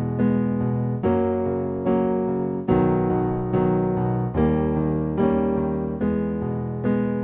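Piano music: sustained chords struck about once a second, each fading before the next.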